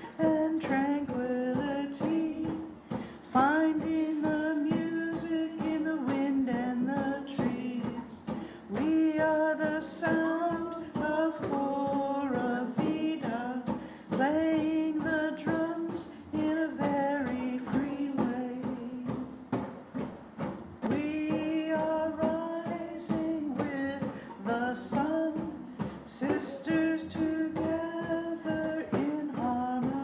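Singing over djembe hand drumming: a sung melody rising and falling above steady drum strokes.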